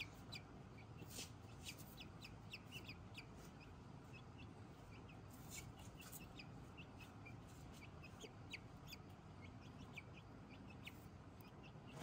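A young chicken pecking at grain on a dirt floor, with many faint, short, high-pitched sounds scattered irregularly throughout.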